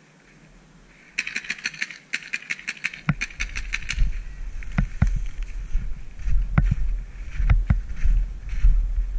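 Paintball markers firing two quick bursts of rapid shots, about ten a second. Then heavy rumble and a few dull knocks on the action-camera microphone as its wearer moves across the snow.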